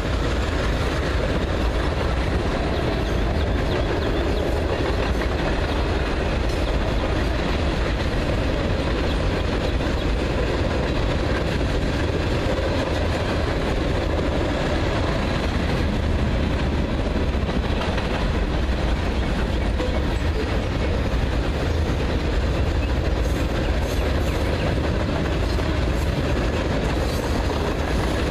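Freight cars of a long train rolling steadily across a rail overpass: a continuous rumble of steel wheels on the rails, with a few clicks near the end.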